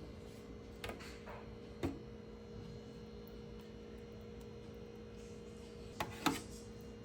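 A steady electrical hum with a few short knocks or clicks: two about a second apart near the start, and a quick pair near the end.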